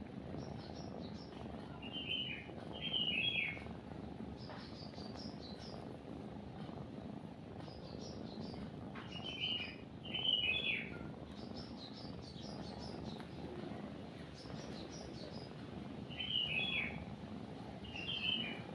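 A cat purring steadily under birdsong: a bird sings short bright chirping phrases about every seven seconds, with fainter, higher chirps in between.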